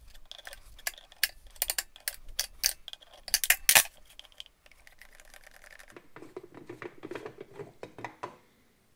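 Sharp metal clinks and taps as a long steel rod works against the metal end cap of a Canton Accusump oil accumulator, loudest a little before the middle. This is followed by a softer, steady scraping as the end cap is twisted off its threads by hand.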